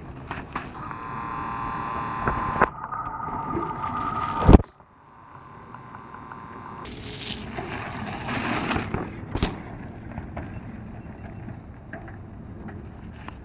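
Mountain bike riding on a dirt and gravel trail. A buzz lasts about two seconds near the start. A single loud thump comes about four and a half seconds in and the sound drops away sharply after it. Tyre and rolling noise then swells and fades as the bike passes.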